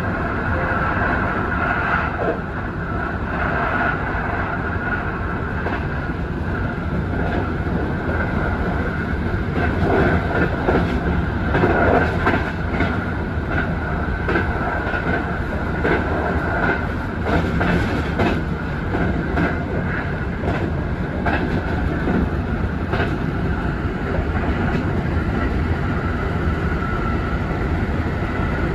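Kintetsu Urban Liner limited express heard from inside the driver's cab, running along the line: a steady rumble of wheels on rail with a constant hum above it, and repeated clacks over rail joints that come thickest and loudest around the middle.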